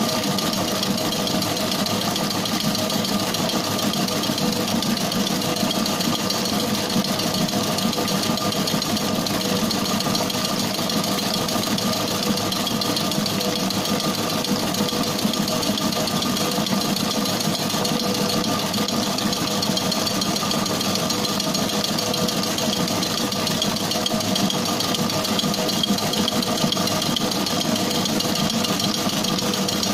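Commercial bakery stand mixer running steadily at speed, its motor and gearing humming with a few steady tones as the spinning beater works sponge cake batter in a stainless steel bowl.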